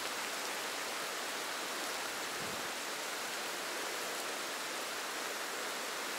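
Steady hiss of rain and running water from a swollen creek, even and unbroken, with a faint low bump about two and a half seconds in.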